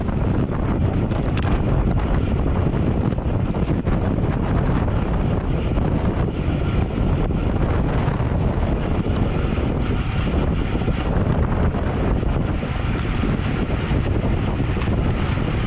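Steady wind noise buffeting the microphone of a camera on a road bike moving at racing speed, a continuous rush heaviest in the low end.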